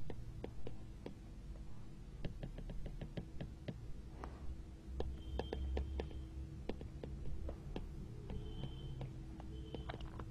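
Marker pen writing on a board: a run of light taps and scratchy strokes, with a few short squeaks in the second half, over a faint steady hum.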